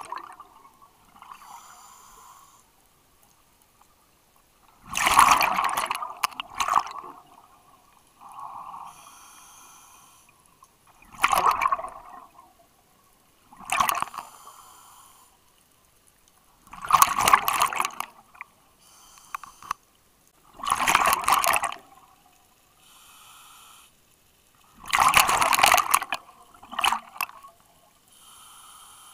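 A scuba diver breathing through a regulator underwater. There are six loud bubbling exhalations, one every three to four seconds, with a softer hiss of inhalation between each pair.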